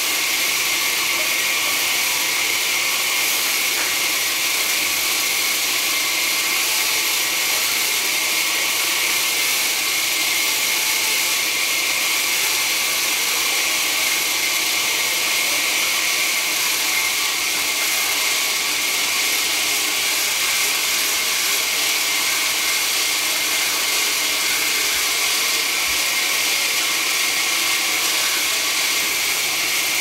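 Band sawmill running with its blade cutting through a large timber log: a steady, high hiss that does not change.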